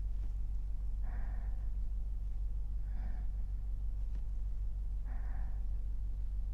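A man's slow, close-up sleeping breathing: soft in-and-out breaths, one full breath about every four seconds, over a steady low hum.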